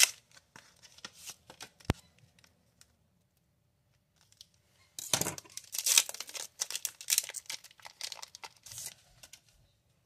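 Foil wrapper of a Pokémon card booster pack being torn open and crinkled by hand: a few scattered clicks and rustles, then a dense stretch of crinkling and tearing from about five seconds in, lasting some four seconds.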